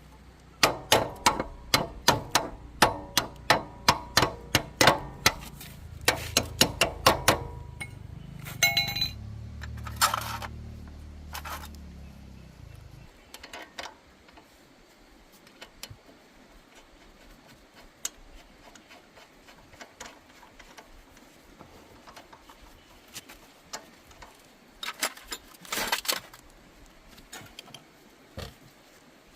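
Workshop tools knocking on metal in a quick, even run of sharp strikes for several seconds over a low hum, which stops about halfway through. Then scattered light clicks and clinks, and a short burst of knocks near the end.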